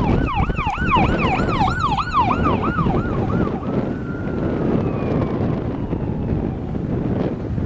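Emergency vehicle siren in a fast yelp, about two and a half sweeps a second, which changes about three and a half seconds in to one slow wail that falls in pitch and fades. Steady wind rumble on the microphone underneath.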